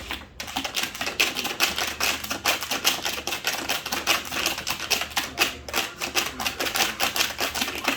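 Rapid, irregular clicking and clattering, several clicks a second, over a robot vacuum running.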